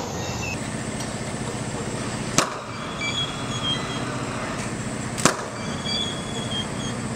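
Two short, sharp clicks about three seconds apart over a steady background hiss.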